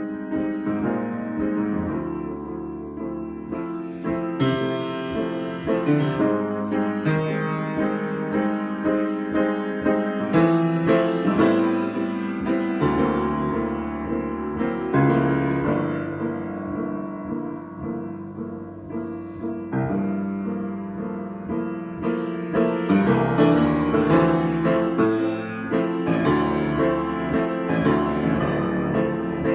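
Solo piano improvisation: chords and melody played over changing bass notes, rising and falling in loudness.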